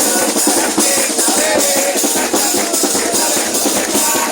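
Live murga music: the percussion section of drums and cymbals beating a steady, driving rhythm, with some voices over it.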